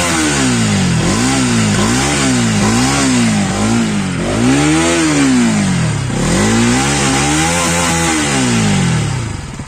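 Bajaj Pulsar NS200's single-cylinder engine through its stock exhaust, revved in repeated throttle blips about once a second, the pitch rising and falling each time, with the longest, highest rev about halfway through. Near the end it drops back toward idle.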